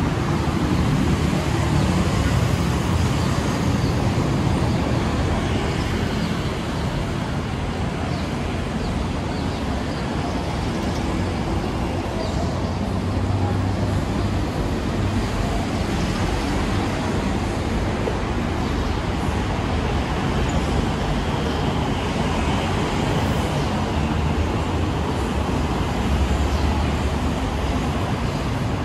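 Steady, busy city road traffic: a continuous mix of engine rumble and tyre noise from passing motor vehicles.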